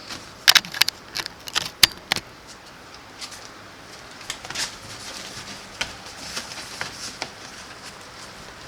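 Metal hand tools clinking and clicking while being handled: a burst of sharp metallic rattles and clicks in the first couple of seconds, then lighter scattered clicks.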